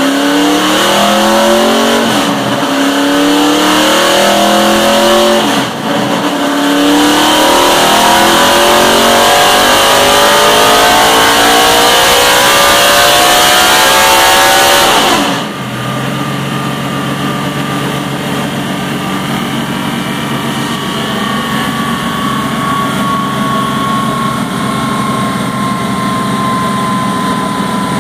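NASCAR Xfinity race car's V8 engine pulling hard on a chassis dyno, its pitch climbing steadily for about fifteen seconds, with two brief dips in the first six seconds like upshifts. Then the throttle is closed abruptly and the engine drops back to a steady low running while a high whine slowly falls in pitch as the drivetrain and dyno rollers spin down.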